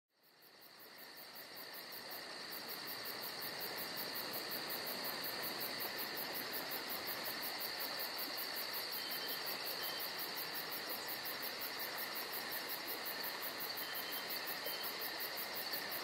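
Chorus of crickets and other night insects: steady high trilling with a faster shrill pulsing above it, a few pulses a second. It fades in over the first few seconds and then holds steady.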